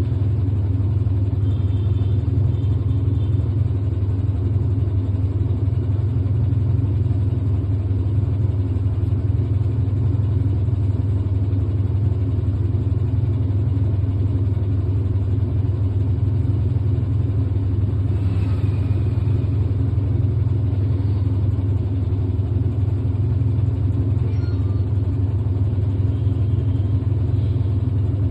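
Whirlpool 360 Bloomwash washing machine running its dryer (spin-dry) cycle: a loud, steady low hum from the spinning drum and motor.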